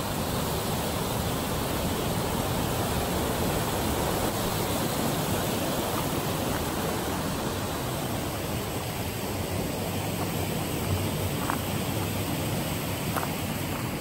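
Small stream rushing over low stone weirs, a steady even splashing rush of running water.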